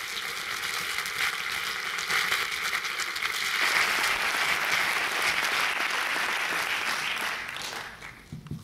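Audience applauding: a dense clatter of many hands clapping that fades away near the end.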